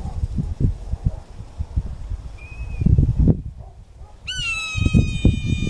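A bird gives a short high chirp, then one long, drawn-out, slightly falling call starting about three-quarters of the way through. Gusts of wind rumble on the microphone throughout.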